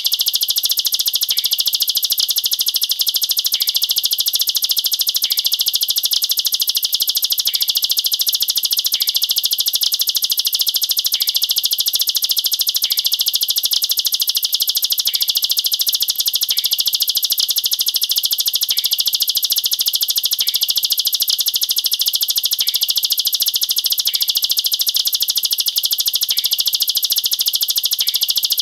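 Ciblek sawah, a prinia, singing its rapid-fire 'nembak rapat' song: a dense, high-pitched trill that runs on without a break.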